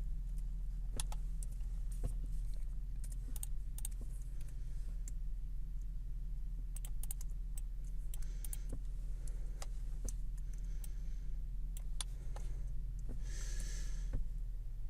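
Scattered sharp computer mouse and keyboard clicks, irregular and unhurried, over a steady low electrical hum.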